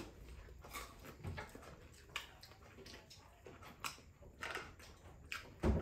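Quiet eating sounds: chewing and mouth smacks, with soft clicks of fingers picking rice and fish off plates. There is one louder thump near the end.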